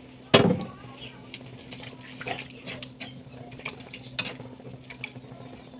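Drained spaghetti tipped from a plastic colander into a pot of sauce, landing with a thud about a third of a second in, then stirred with a utensil that clicks and scrapes against the pot. A steady low hum runs underneath.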